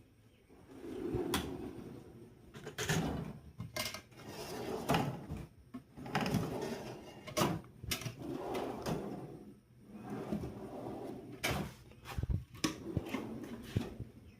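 Metal toolbox drawers on ball-bearing slides being pulled open and pushed shut, one after another: repeated rolling rumbles, each ending in a click or knock as the drawer stops.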